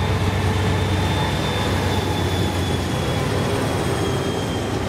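BNSF freight train rolling past, a steady rumble of wheels and cars on the rails.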